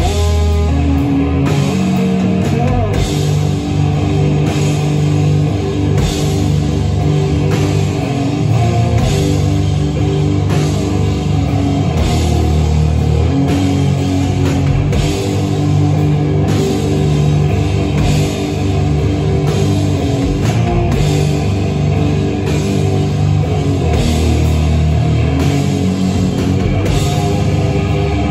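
Live rock band playing loud: electric bass and electric guitar over a drum kit, with regular drum and cymbal hits.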